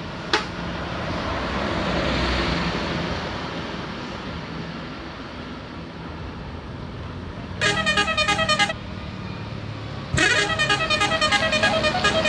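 A bus's telolet horn, a set of horns playing a rapid pulsing multi-note melody, sounds in a short burst about eight seconds in and again from about ten seconds on. Before it, a vehicle passes, rising and fading.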